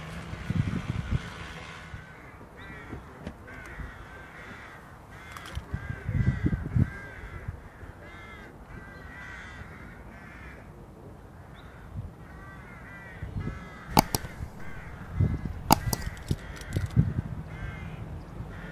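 Crows cawing over and over, with low rumbles rising and fading twice and two sharp clicks about three-quarters of the way through.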